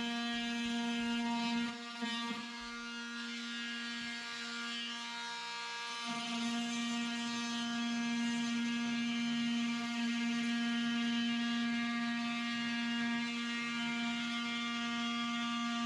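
An electric power tool's motor running with a steady humming whine. The whine weakens about two seconds in and comes back stronger and steady from about six seconds on.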